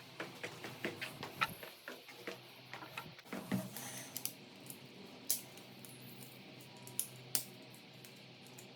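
Irregular light clicks and taps from hand work on wall switch and socket fittings: a quick run of them over the first few seconds, then only three or four isolated clicks.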